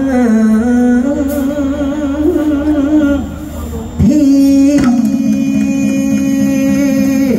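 A male singer chanting Thai sepha (khap sepha) in long, drawn-out sung notes. The first phrase wavers and bends in pitch; after a brief dip, a second note is held steady for about three seconds.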